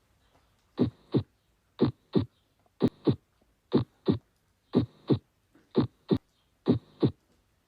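Heart sounds on an auscultation recording: a steady lub-dub, seven evenly spaced beats at about one a second, each a pair of short thuds.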